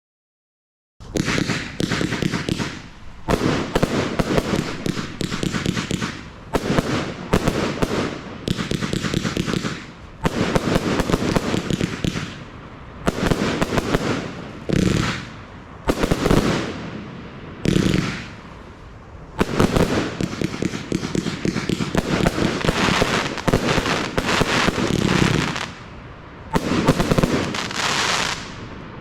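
A compound firework cake firing: after about a second of silence it starts, and dense, rapid volleys of shots and crackling bursts follow in about a dozen waves, with short lulls between them.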